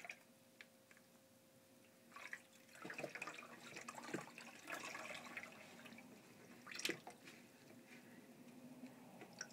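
Water splashing and dripping as a wet bundle of silk hankies is squeezed out by rubber-gloved hands over a plastic pitcher: faint, irregular splashes and drips starting about two seconds in, with a sharper click near the middle.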